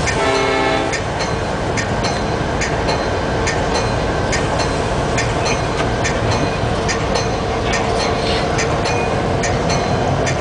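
Diesel locomotive running, heard from inside its cab as a steady rumble. Over it come regular sharp clicks, about two a second, which is the locomotive's bell ringing as it sounds from inside the cab. A brief steady pitched tone sounds in the first second.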